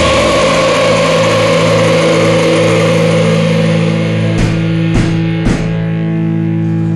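End of a heavy rock song: a held chord rings on steadily, broken by three sharp hits about half a second apart a little past the middle.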